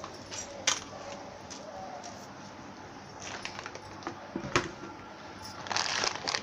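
Dishes being handled: a few sharp clinks and knocks of a bowl, plate and steel spoon, with a short run of clatter near the end.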